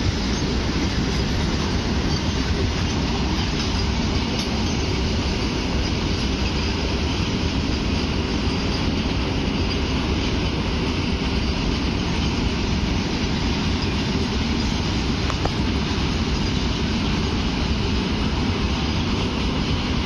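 Long double-rake freight train of open wagons rolling past, with a steady, even noise of steel wheels running over the rails.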